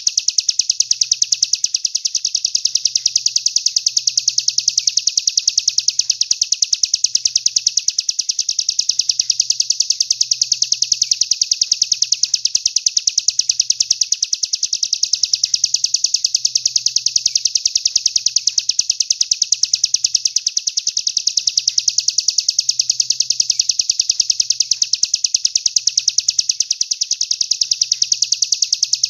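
A songbird's continuous high-pitched rapid trill, a fast run of chirps without a break, easing slightly in level about every six seconds.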